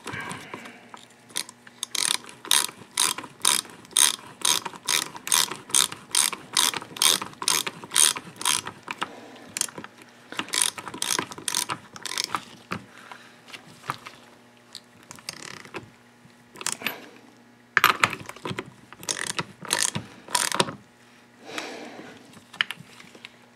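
Socket ratchet wrench clicking in quick, even strokes, about two a second, as the clutch hub nut is run down. The strokes thin out after about twelve seconds and come in short clusters in the second half.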